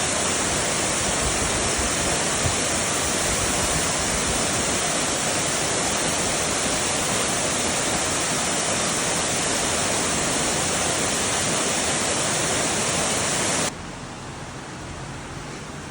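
Talofofo Falls waterfall: a steady rush of falling water that drops abruptly to a quieter rush near the end.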